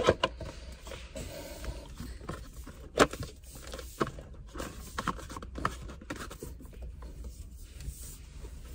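Scattered clicks, taps and light scraping of steering-wheel parts and trim being handled and fitted together, with one sharper knock about three seconds in.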